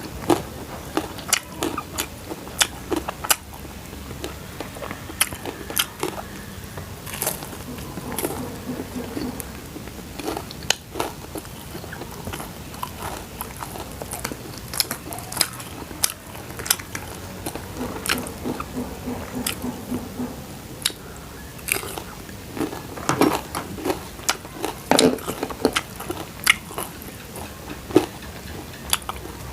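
A person biting and chewing crunchy food close to the microphone, with irregular sharp crunches and chewing noises that come thickest near the end.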